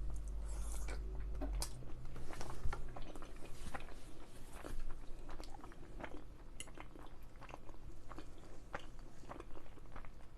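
A person chewing and biting food close to the microphone, with many irregular small wet mouth clicks.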